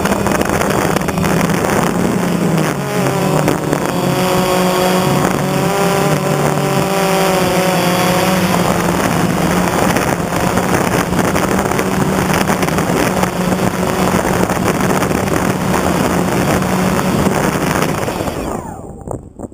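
Quadcopter drone's motors and propellers buzzing steadily, with a higher wavering whine for a few seconds a quarter of the way in. Near the end the motors wind down as the drone comes down into the dirt.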